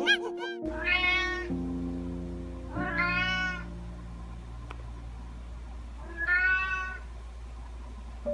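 Domestic cat meowing three times, each meow rising then falling in pitch, over background music.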